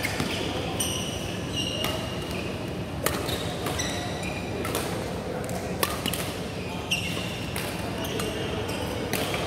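Badminton rally: rackets striking a shuttlecock about once a second, with several short high squeaks of court shoes on the mat between the hits.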